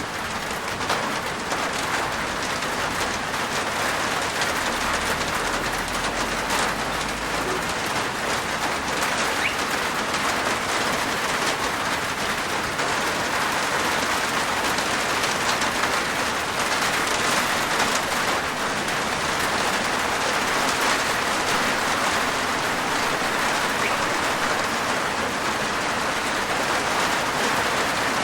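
Steady rain falling on a roof, a dense, even patter of drops.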